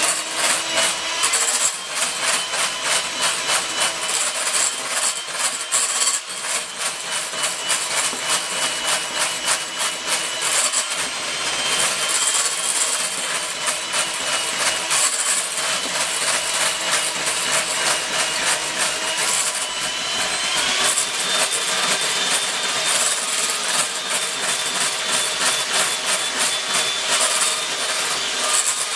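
Electric hand mixer running steadily, its beaters churning butter that has separated from its buttermilk in a glass bowl, with a fast rattling clatter over the motor's whine. The whine rises a little about two-thirds of the way through.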